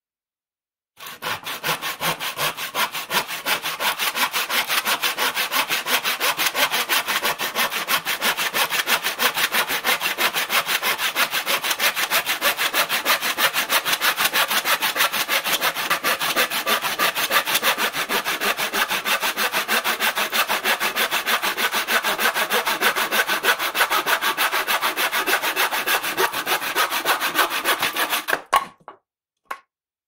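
Crosscut handsaw cutting wood with fast, even back-and-forth strokes, starting about a second in and stopping shortly before the end, followed by one brief last scrape.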